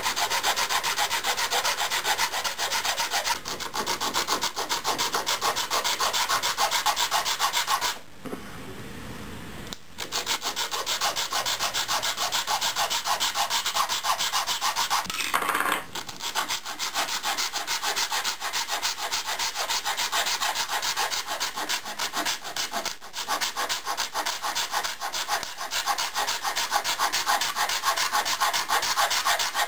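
Metal hand file rasping back and forth across the ends of clamped bamboo strips in rapid short strokes, with a pause of about two seconds some eight seconds in.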